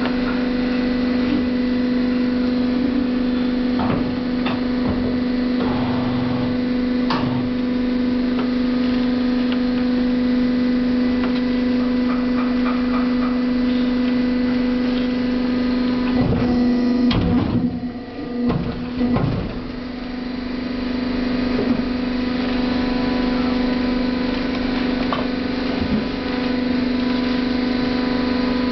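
Bridge-type die-cutting press with its hydraulic unit running, a steady low hum. About sixteen to nineteen seconds in, the hum is broken by a few uneven knocks and a short dip as the press makes a cutting stroke.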